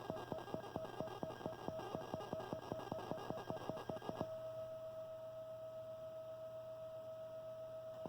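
Electrical noise leaking through a speaker from a Marantz CD-73 CD player's CDM0 drive while it plays a disc: rapid clicking, about six a second, over a pulsing whine, which about four seconds in gives way to a steady whine. The owner takes it for noise of the spinning disc and the laser lens getting into the muted channel, perhaps through a grounding fault.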